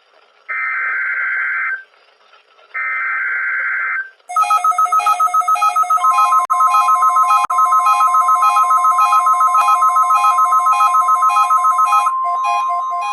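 NOAA Weather Radio Required Weekly Test alert: two short bursts of harsh, buzzy SAME digital header tones. These are followed by rapid electronic alarm beeps, about five a second. About two seconds after the beeps begin, the steady 1050 Hz warning alarm tone joins them and holds on after the beeps stop.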